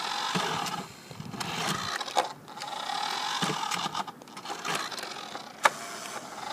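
Small electric motor and gearbox of a remote-control toy car whining in bursts of about a second as it drives on and off. Several sharp clicks or knocks come in between.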